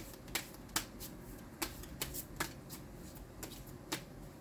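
A deck of tarot cards being shuffled by hand: about ten crisp, irregularly spaced card snaps.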